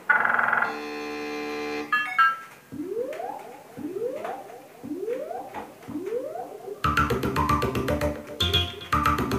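Electronic synthesizer music. A held synth chord is followed by a series of rising synth swoops about once a second, then a fast electronic beat comes in about seven seconds in.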